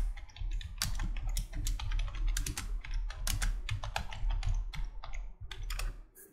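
Computer keyboard typing: a quick, irregular run of keystrokes as a terminal command is typed out and entered, over a low steady hum.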